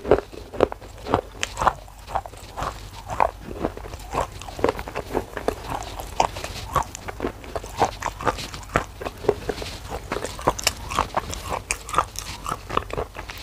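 Close-up crunching and chewing of black shale clay: irregular sharp crunches, several a second, with a fresh bite off a clay slab near the end.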